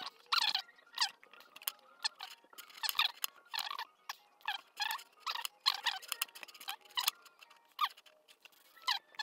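A series of short, irregular clicks and crackles, about one or two a second.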